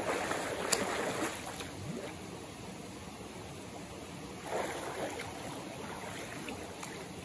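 Steady rush of flowing water at a waterfall pool, with a few short sharp sounds in the first two seconds.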